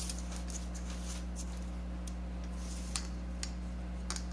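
Faint light ticks and rustles as fingers press crumb crust into a metal springform pan, over a steady low hum.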